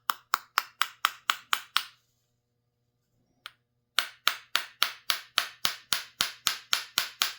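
Small hammer lightly tapping a metal fuel line fitting back into its seat on a chainsaw, the fitting just turned down to take a smaller fuel line. Quick, even taps at about four a second, a pause with a single tap, then a second, longer run of taps.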